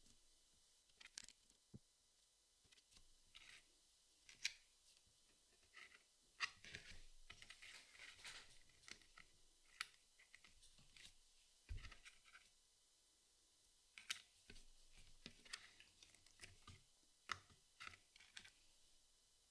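Jigsaw puzzle pieces being handled and fitted: faint, scattered clicks and taps, with a denser stretch of rustling about six to nine seconds in and a soft low thump about twelve seconds in.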